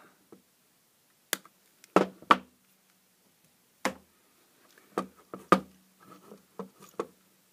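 A string of sharp clicks and knocks with pauses between: side cutters snipping through the old LED driver's wires, the cutters set down, and the plastic floodlight case being handled on the workbench.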